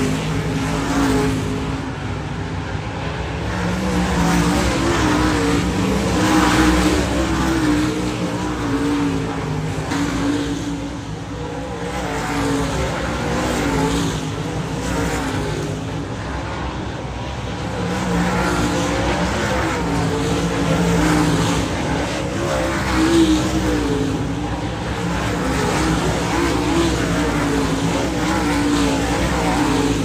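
Dirt late model race cars' V8 engines running at moderate, wavering revs. The sound swells and eases as the cars circle the dirt oval.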